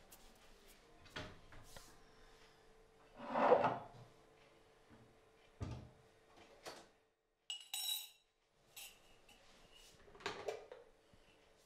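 Kitchen cupboard door and ceramic mugs being handled, with a drip coffee maker's glass carafe: a string of separate knocks and clinks, the loudest a little over three seconds in. A faint steady hum lies under the first half.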